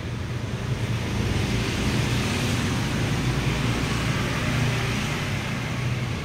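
Steady low rumble and hiss of background noise, growing a little louder about a second in.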